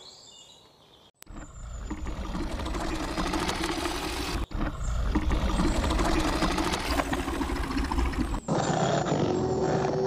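Wild-beast roaring and growling sound effect with a deep rumble underneath, starting about a second in. It breaks off sharply twice.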